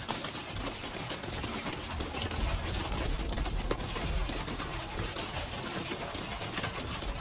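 Storm wind gusting on the microphone, a low rumble that swells about two seconds in, with a dense patter of rain.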